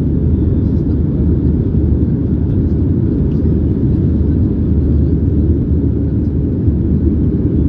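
Steady low cabin noise of a Boeing 737-800 in its climb after takeoff, heard from inside the cabin beside the wing: its CFM56-7B turbofan engines and the airflow over the fuselage.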